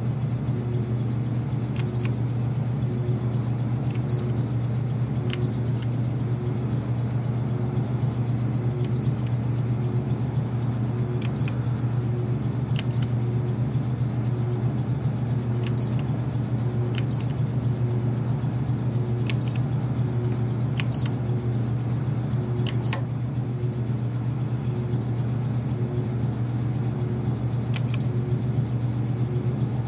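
Short high beeps from the Rollem Auto 4's Multi Numbering keypad, about a dozen at uneven intervals as a new numbering job is keyed in. Under them runs a steady low hum that pulses softly a little more than once a second.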